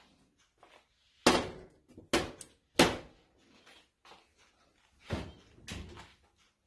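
Three sharp metal clunks as a loaf pan is set down on the stovetop, then two softer knocks as the oven door is pulled open.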